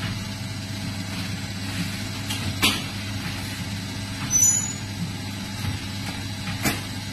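Liquid pouch packaging machine running with a steady low hum, giving a sharp clack twice about four seconds apart and a short high hiss between them.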